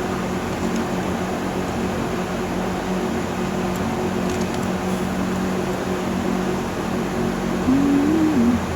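Steady hum of a fan or air-conditioning unit running, with a constant low drone under an even whoosh.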